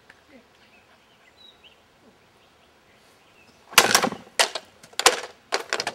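A two-handed Chinese sword chopping through bamboo: four sharp cracks in quick succession, starting a little past the middle. Before them, faint birdsong.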